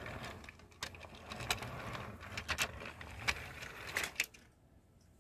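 Plarail toy train rolling along blue plastic track: a low running rumble with sharp, irregular clicks as the wheels cross the track joints, falling away about four seconds in.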